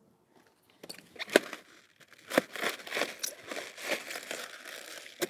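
A knife cutting through a large, dense head of Bellicose cabbage, the leaves cracking and crunching. A couple of sharp cracks come about a second in, then a run of crunching strokes from about two seconds in.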